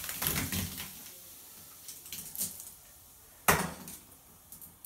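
Champagne bottle being disgorged over a bathtub: the hiss and spray of gas and foam rushing from the neck after the sediment plug is pulled dies away in the first second. A few small clicks follow, then about three and a half seconds in one sharp knock with a brief ring.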